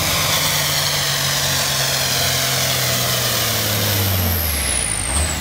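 Stock diesel semi truck pulling the sled at full throttle, its engine labouring under the load, with the engine pitch dropping about four seconds in. A thin high whine glides downward near the end.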